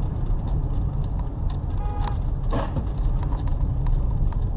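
Car driving: a steady low road-and-engine rumble with scattered clicks and rattles.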